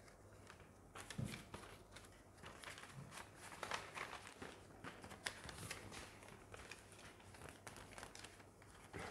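Paper ballots being handled during the count: quiet, intermittent rustling and crinkling of paper with scattered soft taps.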